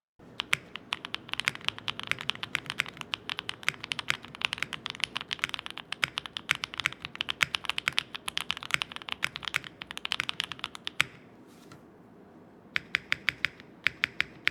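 Typing on a Neo98 custom mechanical keyboard with Gateron Banana Smoothie switches, a PP plate and GMK Manta keycaps. Rapid keystrokes run for about eleven seconds, then a brief pause, then a short run of evenly spaced key presses near the end.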